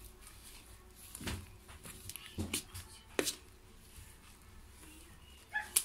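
Metal spoon stirring a thick flour and banana batter in a stainless steel bowl, with a few scattered clinks of the spoon against the bowl.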